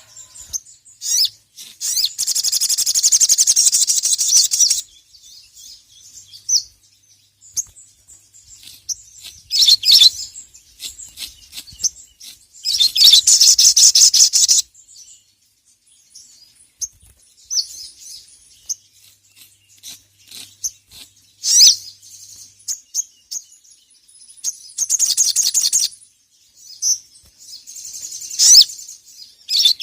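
Ruby-cheeked sunbird (sogon) singing in full voice: loud, high-pitched, rapid trills of two to three seconds come three times, with short sharp chirps scattered between them.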